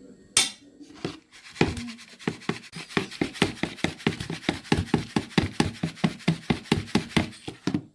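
Flour being sifted through a hand sieve, which is shaken and tapped in a quick, even run of knocks, about five a second. A few separate knocks come first, and the tapping stops abruptly near the end.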